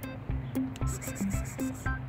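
Background music with a steady beat: regular bass notes and sharp percussive clicks, with short melody notes over them.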